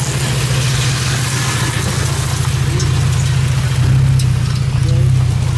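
Toyota Tacoma TRD Pro's V6 engine running at low speed as the truck crawls slowly over, a steady low drone that swells slightly about four seconds in.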